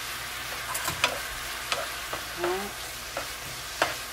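Beef, squid, carrots and onion sizzling in a thin sauce in a nonstick frying pan while a wooden spatula stirs them. The spatula knocks sharply against the pan a few times, most clearly about a second in and near the end.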